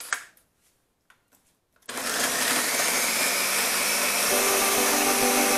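A couple of light clicks as the lid is fitted onto a countertop blender jar. About two seconds in, the blender starts and runs steadily, pureeing boiled cassava with passion fruit and broth. A humming tone joins the motor noise partway through.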